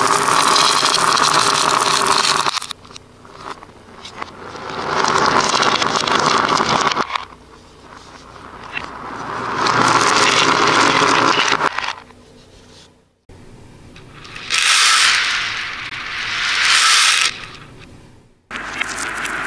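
Streams of small beads pouring and rattling in several separate runs of two to three seconds each, each swelling up and dying away, with sudden breaks between them.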